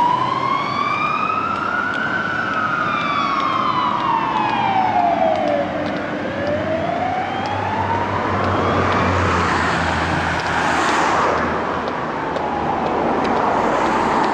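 Fire engine siren on a wail setting, sweeping slowly up and down about four seconds each way, from a Mercedes Atego fire rescue unit on an emergency run. About ten seconds in, the truck's diesel engine and road noise swell as it passes close.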